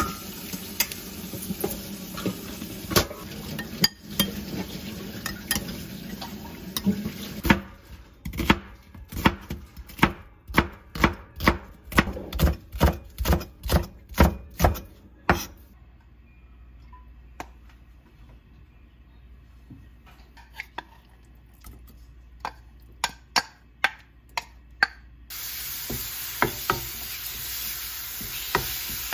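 Seasoned chicken pieces stirred in a glass bowl with a metal spoon. Then a knife chopping green onion on a wooden cutting board, about two cuts a second, fading to fainter, sparser cuts. Near the end, chicken sizzling in a hot frying pan while being stirred with a wooden spatula.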